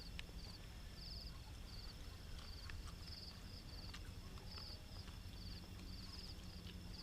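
Insects chirping: short high trills repeating about every half second, over a low steady rumble.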